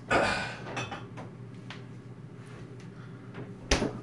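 Kitchen handling sounds as glass mason jars are fetched: a rattling scrape at the start, a few light clicks and knocks, and one sharp knock just before the end. A steady low hum from the running air fryer's fan sits underneath.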